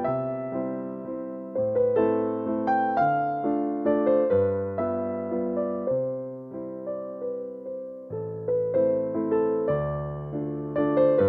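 Background music: a gentle, slow piano melody over soft chords.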